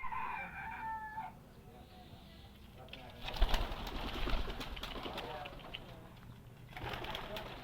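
A bird calls in the first second with a run of pitched notes. Then comes a stretch of rustling and thumps, loudest a little past the middle.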